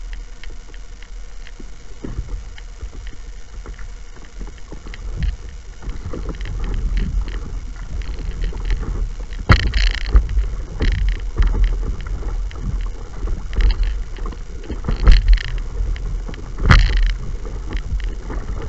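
Water splashing and slapping against a stand-up paddleboard as it is paddled, over a steady low rumble. It grows busier after the first few seconds, with about five louder splashes in the second half.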